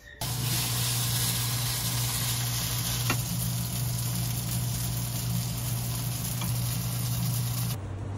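Spaghetti sizzling in a hot frying pan as it is stirred and tossed with wooden chopsticks, over a steady low hum, with a single click about three seconds in. The sizzle cuts off suddenly near the end.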